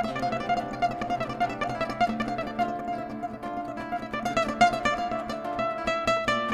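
Solo acoustic guitar playing a quick run of plucked notes.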